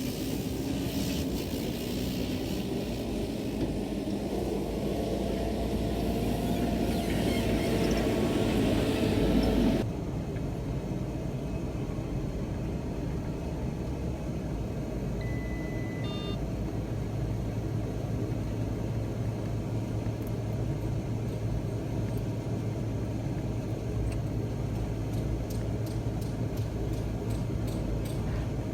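An engine running steadily, with an abrupt change about ten seconds in to a quieter, lower hum; a few faint ticks near the end.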